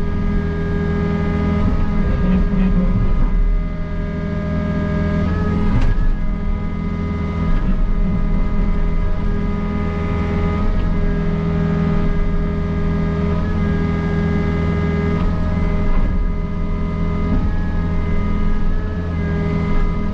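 Takeuchi excavator's diesel engine running steadily under load, heard from inside the cab, with the hydraulics working the boom and bucket against a concrete catch-basin box. A knock comes about six seconds in.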